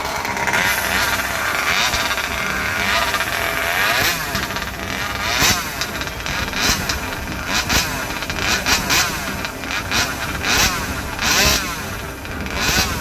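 Two-stroke chainsaw engine being revved up and down over and over, the pitch sweeping high and falling back. In the second half come quick throttle blips about once a second.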